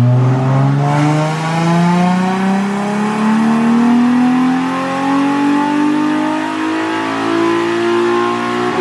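Nissan 350Z's VQ 3.5-litre V6 at full throttle on a chassis dyno, the revs climbing steadily through one long pull of about eight seconds. The throttle is let off right at the end.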